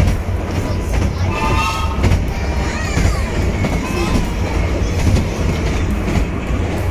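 A 15-inch-gauge miniature railway train running through a tunnel, heard from inside its carriage: a steady, loud low rumble of the wheels and carriage on the track.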